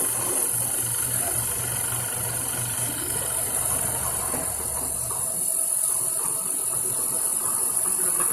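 TU-2A CNC training lathe running: a steady machine hum with a pulsing low drone. A deeper part of the hum drops out about five seconds in.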